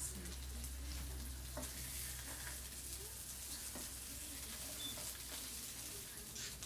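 Red pepper pieces sizzling as they sauté in olive oil in a hot pan, with a spoon stirring them and clicking lightly against the pan now and then.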